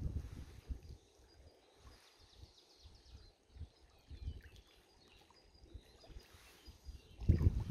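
Outdoor lakeside ambience: uneven low rumbling gusts of wind buffeting the microphone, strongest about seven seconds in, with faint bird chirps in the background.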